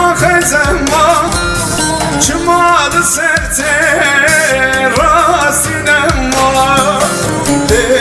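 A song: a singing voice with vibrato over instrumental backing.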